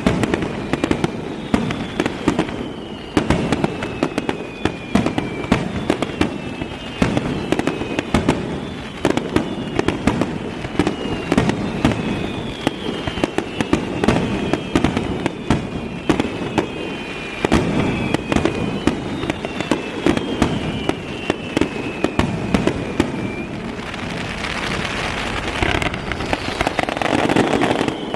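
Fireworks display: a rapid, continuous run of aerial shell bangs and crackles. High whistles slide down in pitch again and again through most of it, and the sound thickens into a denser barrage near the end.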